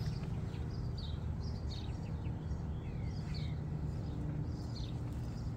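Small birds chirping in short, quick calls, a few of them sliding down in pitch, over a steady low rumble.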